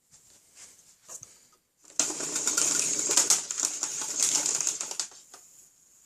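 Power cord of a 1999 Hoover Triple Vortex vacuum cleaner rewinding into the machine: a few faint clicks, then about two seconds in a fast, loud clattering rattle for about three seconds as the cord is drawn in, dying away near the end. The cord rewind is working.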